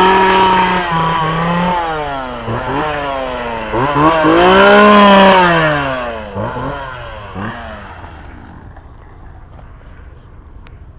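Gas chainsaw engine revving: held at high revs, dropping, revved up again about four seconds in, blipped twice more, then fading away in the last few seconds.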